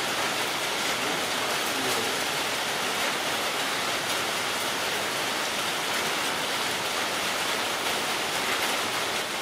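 A steady, even hiss of noise with no distinct events.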